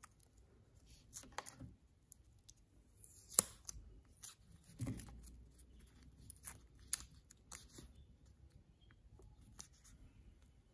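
Clear printed decorative tape being peeled off its roll and pressed onto a plastic speaker: scattered sticky crackles and sharp ticks, the sharpest about a third of the way in.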